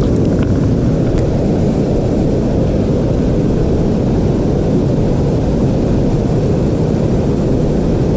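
Steady low rush of creek water pouring in at a small drop.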